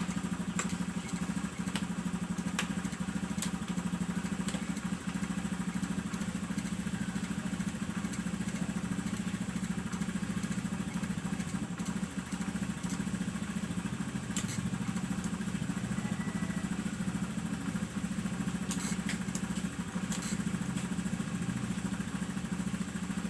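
Motorcycle engine idling steadily with an even, unchanging beat, a few light clicks near the end.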